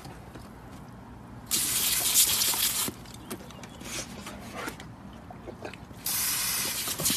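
Garden hose spray nozzle spraying water in two bursts of about a second and a half each, a steady hiss that starts and stops abruptly.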